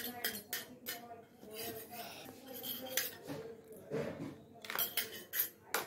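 A spoon clinking and scraping against a stainless steel bowl while scooping thick herbal paste: a string of sharp, irregular clicks.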